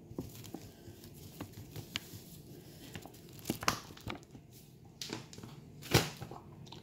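Thin plastic packet crinkling and rustling as powder is poured from it into a ceramic mug, with scattered light clicks and one sharper click about six seconds in.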